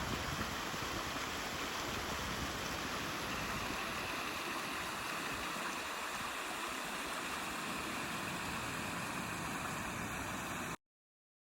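Steady rushing outdoor noise, even throughout, that cuts off suddenly near the end.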